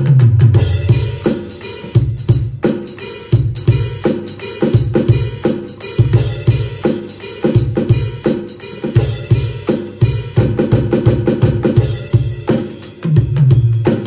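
Music with a drum kit playing a steady beat over a low bass line.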